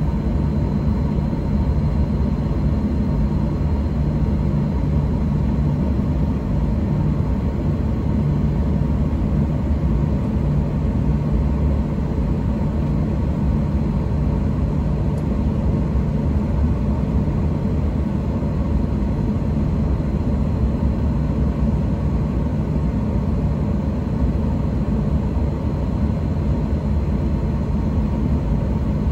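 Steady low rumble of a Boeing 737-800 cabin on the ground, its CFM56-7B engines running at idle, with a faint steady whine over it.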